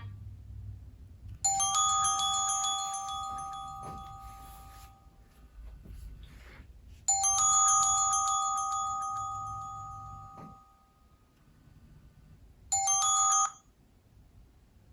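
Nokia C7-00 ringtone: a bell-like chime, two tones struck together with a high shimmering ring, sounding three times about five and a half seconds apart. The first two ring out slowly, and the third is cut off suddenly after under a second.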